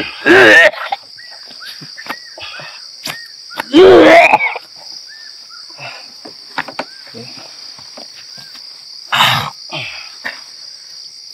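Crickets chirping steadily, with a man's loud wordless groans twice, just after the start and about four seconds in, and a short rasping breath near the end.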